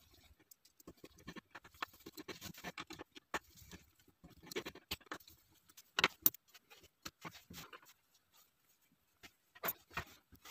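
Small screwdriver working screws and plastic and metal lens parts being handled: faint, irregular clicks and scrapes, with a few sharper clicks about six seconds in and again near the end.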